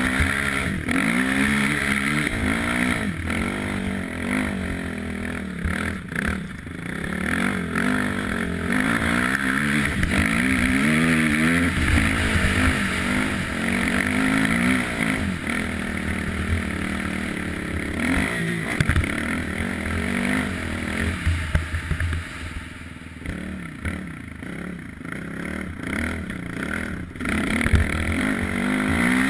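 ATV (quad bike) engine revving up and down as it is ridden, its pitch rising and falling with the throttle. It eases off for a stretch about three-quarters of the way through, then picks up again.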